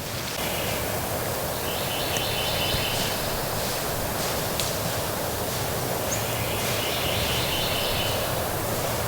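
Steady wind through the spring woods, with a small songbird trilling twice, each trill about two seconds long.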